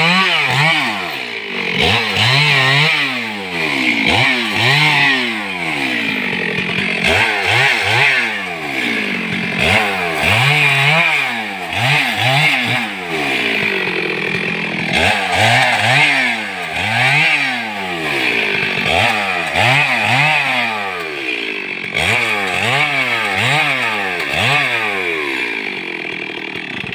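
Chainsaw engine revving up and falling back again and again, about every one to two seconds, with a steady rasping whine over it.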